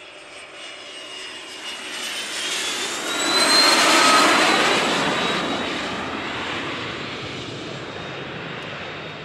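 Cessna Citation CJ2 twin-turbofan business jet flying past: a jet roar with a high whine that builds to a peak about four seconds in, then slowly fades.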